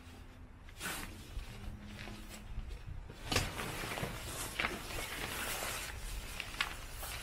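Gazelle 4T tent's rainfly fabric rustling and crinkling as it is dragged off the tent frame. A few sharper crackles stand out, the loudest about three seconds in.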